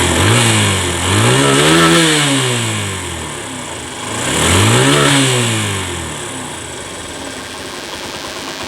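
TVS Apache RTR 150's single-cylinder four-stroke engine revved twice with the throttle, each rev rising and falling over about two seconds, then settling to a steady idle. This is its sound after carburettor tuning, an air-filter change and tappet clearance adjustment, which the mechanic says have made it good and cured its stumbling pickup.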